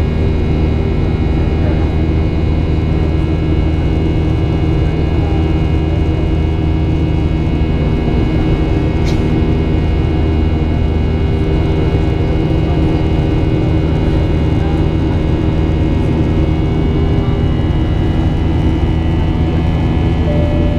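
Steady cabin noise of a Boeing 737-800 in flight, heard at a window seat over the wing: the low drone of its CFM56 turbofan engines and airflow, with several steady whining tones above it. A faint tick sounds about nine seconds in.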